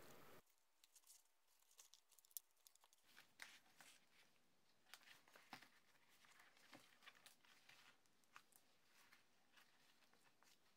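Near silence broken by faint, scattered paper rustles and light taps as the pages of a sewn handmade journal are handled.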